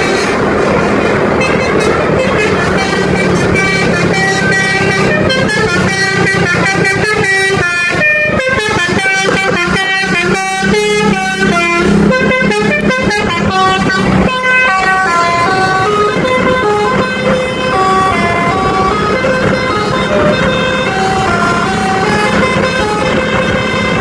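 Bus telolet horn, a multi-tone basuri-type air horn, playing a long fast melody of short notes that jump up and down in pitch. The bus's engine runs underneath it.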